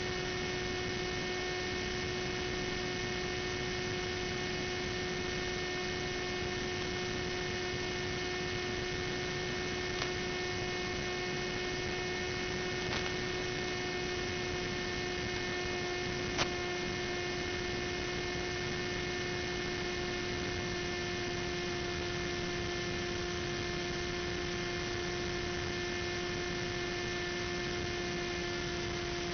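Steady electrical hum over hiss, as heard on the analog audio channel of an FPV video link, with three faint clicks partway through.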